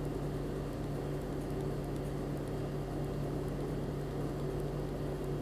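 Steady low background hum with a faint hiss and no speech, constant throughout.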